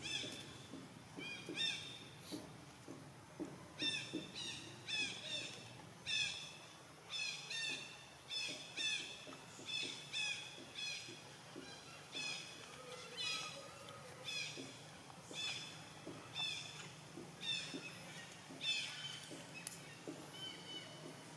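Short, high-pitched, downward-slurring animal calls repeated about once or twice a second, in runs through most of the stretch.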